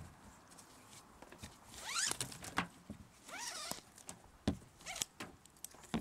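Released ratchet strap being handled: the nylon webbing zips through the ratchet's slot twice, each a scratchy sweep that rises and falls in pitch, then the metal ratchet gives a few sharp clicks and knocks.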